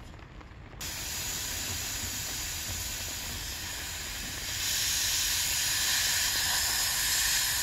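Pressurized factory holding charge of air hissing steadily out of a mini-split head unit's flare fitting as the nut is loosened. The hiss starts about a second in and grows louder about halfway through. It is normal: the unit ships under pressure, and the charge is not refrigerant.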